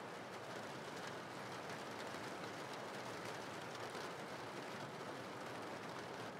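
Steady rain-sound background: an even, unbroken hiss of falling rain at a low level.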